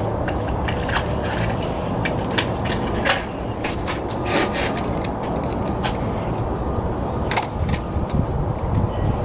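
Scattered sharp clicks and light scrapes of hand tools and metal parts during spark plug work, over a steady low rumble.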